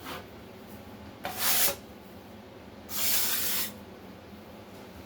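A drywall trowel dragged across the wall twice, scraping joint compound over a butt joint in a thin coat: two short scraping strokes about a second and a half apart, the first about a second in.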